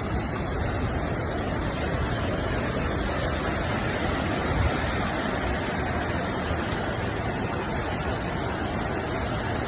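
Floodwater rushing in a river torrent, a steady dense noise with no let-up.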